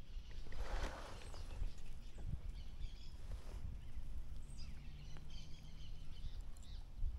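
Outdoor ambience: a steady low wind rumble with faint, high bird chirps.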